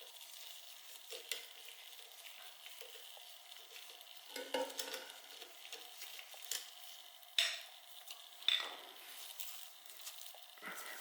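Quiet hand work on a motorcycle: light rustling and scraping, with a few sharp clicks or taps, the clearest two about seven and eight and a half seconds in.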